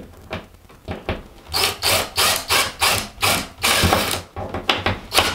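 Cordless drill driving a screw through plasterboard into a backing patch, run in a string of short bursts about three a second, starting about one and a half seconds in after a few lighter clicks.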